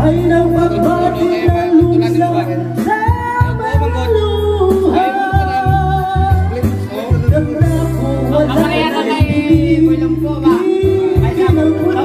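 A man singing through a handheld microphone over a backing track with a bass line, holding long notes.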